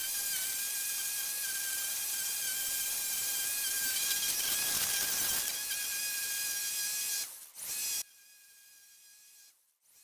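Ryobi 40V battery string trimmer running at full speed with a steady whine, its line cutting an edge into soil and turf along a paver patio. About seven seconds in it dips, comes back briefly, then stops abruptly, leaving only a much fainter sound.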